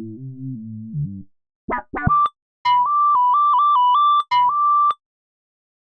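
Reason 12's Subtractor software synthesizer auditioning patches: a low sustained sound fades out about a second in, a few short stabbed notes follow, then a bright lead flips back and forth between two high notes and stops abruptly about five seconds in.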